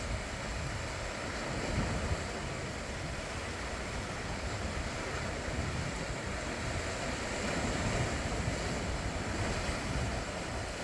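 Sea waves washing against the shore, a steady rush with wind buffeting the microphone as an uneven low rumble.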